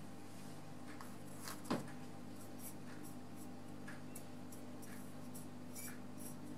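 Faint strokes of a paintbrush on watercolor paper, over a steady low hum, with one sharper tap about a second and a half in.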